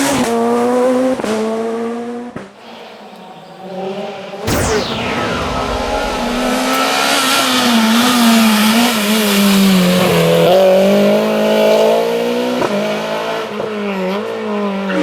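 Rally car engines at high revs, climbing in pitch and breaking off at gear changes, then cutting abruptly about four and a half seconds in to another car running hard, its engine note rising and falling as it is driven through the stage.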